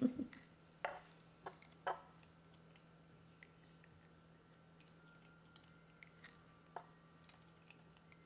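Sparse light clicks and taps of a kitchen knife on potatoes and a wooden cutting board while the eyes are cut out of potatoes: several in the first two seconds, then one near seven seconds, over a faint steady hum.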